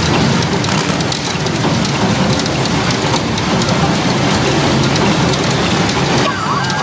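Pachinko machine and hall noise: steel pachinko balls clattering, a dense steady rattle full of small ticks. Near the end an electronic tone from the machine comes in, rising slightly.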